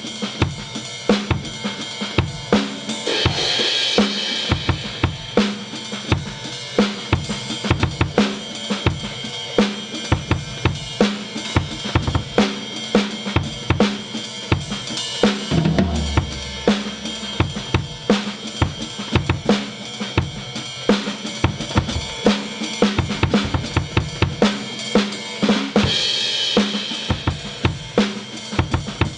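Background music: a drum-kit track with a steady beat of bass drum, snare and hi-hat, and cymbal washes about three seconds in and again near the end.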